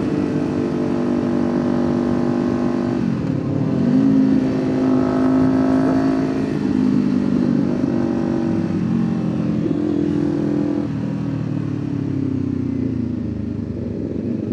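Kawasaki Ninja 500's parallel-twin engine under way, heard from the rider's position. About three seconds in its pitch dips and climbs back up, as at a gear change. It then holds steady and falls slowly near the end as the bike slows.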